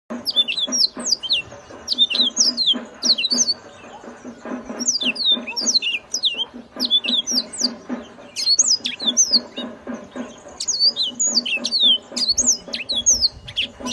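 Yellow-fronted canary singing loudly: phrase after phrase of quick, high down-slurred notes, a new phrase every second or two, over a low pulsing hum.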